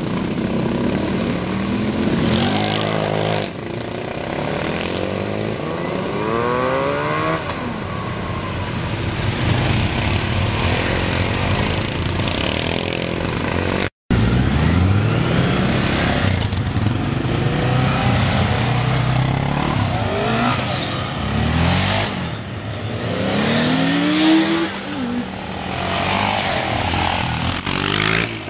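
Several sport quad bikes driving past one after another, their engines revving up in rising pitch sweeps as they accelerate away. A brief dropout about halfway.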